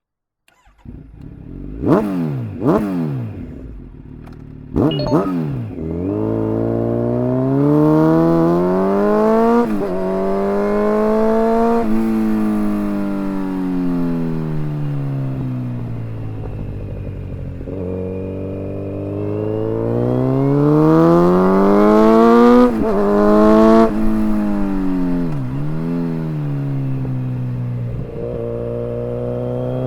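2019 Kawasaki Z900 inline-four through an open full Akrapovič exhaust with no dB killers, with the microphone mounted on the bike. It fires up just under a second in and is revved sharply twice, then once more, before settling into long rises and falls in pitch as it accelerates and eases off under way.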